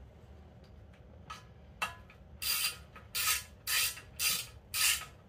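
Hand ratchet tightening a bolt that holds the manifold air pressure sensor on an intake manifold: a couple of faint clicks, then from about halfway a regular run of ratcheting strokes, about two a second.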